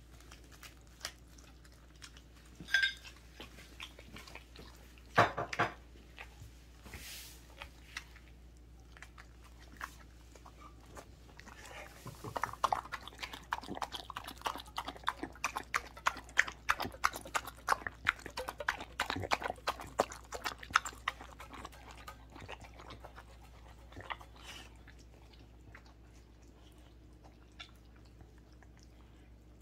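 A Welsh corgi eating from a stainless-steel bowl: a few sharp knocks in the first seconds, then a fast, dense run of licking and clicking as tongue and teeth hit the metal through the middle, fading near the end as it goes back to quieter chewing on a raw whole chicken.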